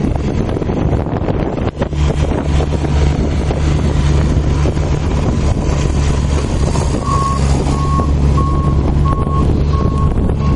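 A large engine running steadily with wind noise on the microphone; about seven seconds in, a repeating electronic beep starts, roughly two beeps a second.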